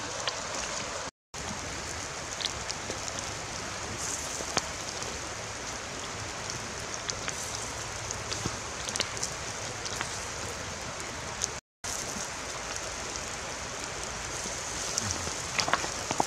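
Fish grilling on a wire rack over wood embers: a steady sizzle with scattered crackles and pops. The sound drops out to silence twice, briefly.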